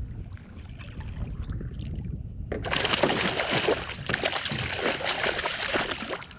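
Water splashing and sloshing around a fishing kayak at sea, over a low wind rumble, growing louder and busier with crackling splashes from about two and a half seconds in until just before the end.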